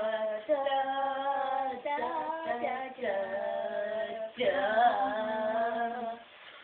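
A girl singing in long held notes over several phrases, stopping about six seconds in.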